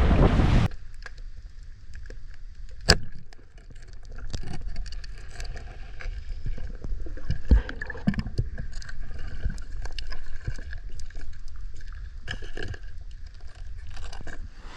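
Muffled underwater sound through a camera housing: a low wash of water with scattered small clicks and crackles, and two sharp knocks about three seconds and seven and a half seconds in. It opens with a brief burst of wind noise on the microphone.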